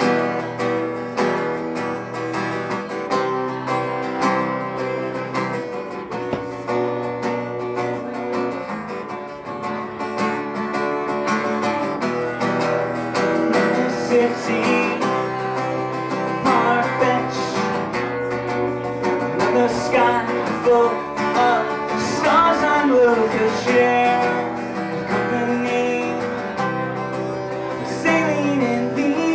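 Acoustic guitar strummed in steady chords, with a man's voice singing over it from about halfway through.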